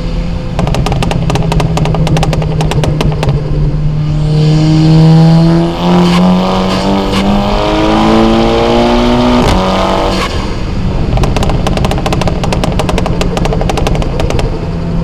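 Car engine and loud aftermarket exhaust: the engine pulls hard with its pitch rising for about five seconds, then drops off, with rapid runs of crackling pops before and after the pull.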